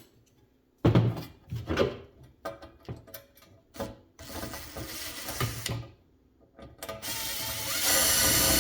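Metal clicks and knocks of small hand tools, screws and nuts being worked onto the studs of a box fan blade hub. From about seven seconds in there is a louder, steadier mechanical rattling.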